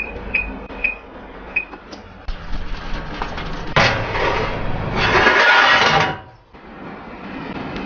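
Electric oven's touch control panel beeping at each press, four short beeps in the first two seconds. Then the oven's wire rack is pulled out, metal scraping and rattling for about two seconds before it stops suddenly.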